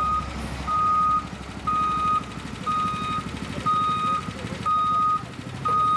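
Work vehicle's reversing alarm beeping about once a second, a single steady high-pitched tone, over the low rumble of a diesel engine running.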